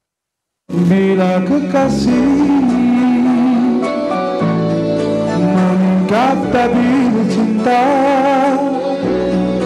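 Silence for under a second, then a man singing into a microphone over instrumental accompaniment, his voice bending between notes and wavering on held ones.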